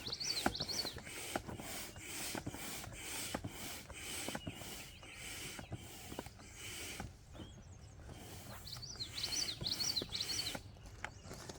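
Hand or foot air pump inflating an inflatable boat, a rhythmic hiss of air at about two strokes a second that stops about seven seconds in. A songbird sings a short phrase of chirps near the start and again about nine seconds in.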